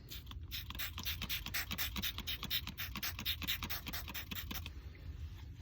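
Carpet being scrubbed in quick, even back-and-forth strokes, about five a second, stopping shortly before the end.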